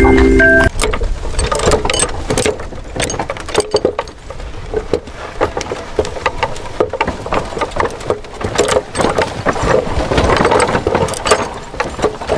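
Small motorized toy running, with plastic parts clicking and rattling irregularly.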